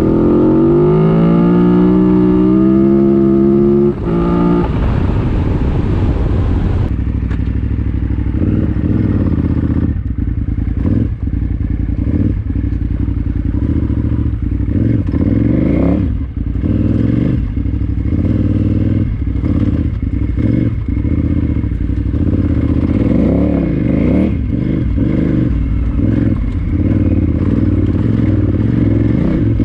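KTM 990 Adventure R's V-twin engine with an Akrapovic exhaust accelerating, rising in pitch until about four seconds in, then running at low, steady revs with small throttle changes. Frequent knocks and clatter from the bike working over rough single track.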